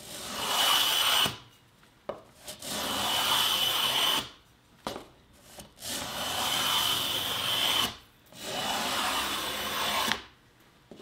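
Small hand plane cutting along the edge of a bead groove in a beadboard panel, chamfering the edge and rounding over the bead. Four strokes of a second or two each, with short pauses between.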